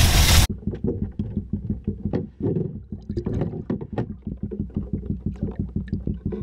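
Wind buffeting the microphone for about half a second, then a sudden change to the muffled sound of water heard from underwater: sloshing with many irregular small knocks and clicks as a spotted bass moves in a boat's live well.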